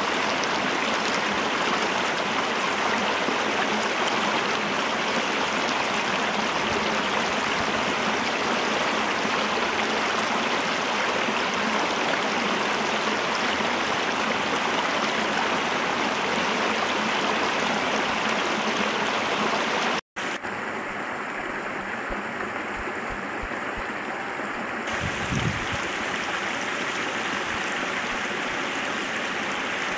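Shallow mountain stream running over rocks, a steady rushing of water. There is a brief gap about two-thirds of the way through, after which it continues slightly quieter.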